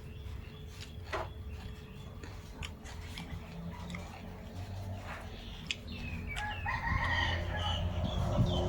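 A rooster crowing: one long call starting about six seconds in, preceded by a few light clicks.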